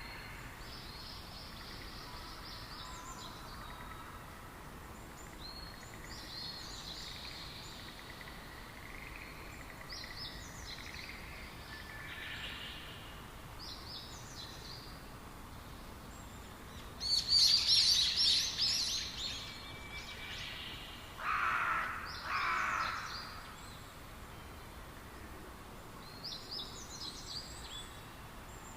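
Small birds chirping in short high phrases every few seconds over a steady background hiss. About two-thirds of the way through comes a louder burst of chirping, followed by two lower, shorter calls.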